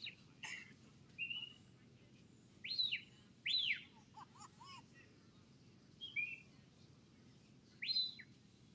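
Shepherd's whistle blown by a sheepdog handler: a string of short whistled commands, mostly swooping notes that rise and fall, with a few short flat notes. The loudest pair comes about three seconds in, and another swoop comes near the end.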